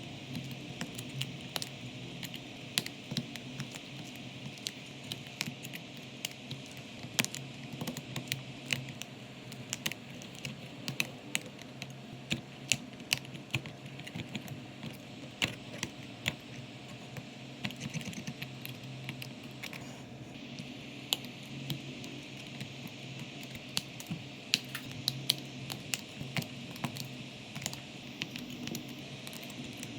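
Irregular light clicks and taps of small repair tools working on a phone's parts, several a second, over a steady low hum.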